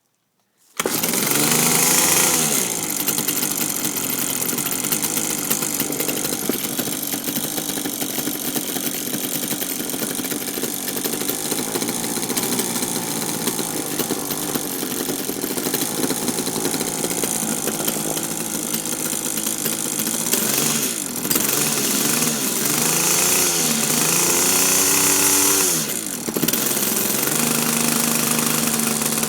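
Kawasaki TD24 weed whacker's small two-stroke engine running, starting about a second in, its pitch rising and falling several times as the throttle is worked. It runs rough: the owner says it bogs when given gas, most likely a dirty carburettor with the idle not yet set.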